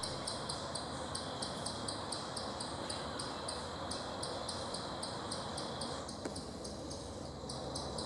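Insects calling in the woods: a high, even chirping of about four pulses a second over a faint steady high drone.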